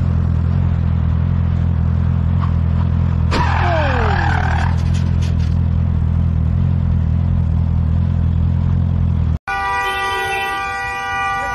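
Motorcycle engine idling steadily. About three seconds in comes a sudden crashing noise with a falling screech that lasts about a second. Near the end a car horn sounds continuously.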